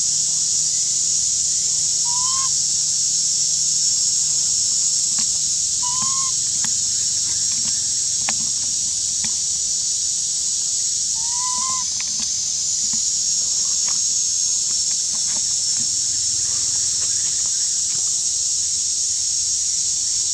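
A steady, high-pitched forest insect chorus drones throughout. Three short, rising whistled calls come through about two, six and eleven seconds in.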